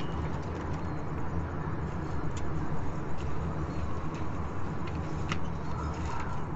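Steady low engine rumble, with a few light clicks and taps.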